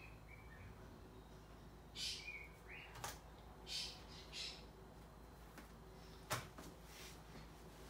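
Quiet room with soft rustling of a blanket as someone shifts and sits up on a futon, a few faint high chirps, light clicks, and one sharp knock about six seconds in.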